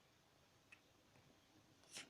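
Near silence: room tone, with a faint click about two-thirds of a second in and a brief swish just before the end.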